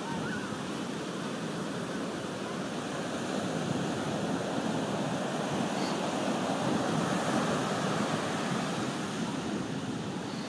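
Ocean surf breaking and washing up a sandy beach, a steady rushing wash that swells a little louder in the middle and eases off toward the end.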